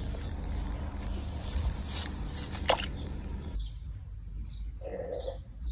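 Outdoor handheld ambience: rustling and low rumble from handling, a single sharp click a little under three seconds in, and faint bird chirps in the second half.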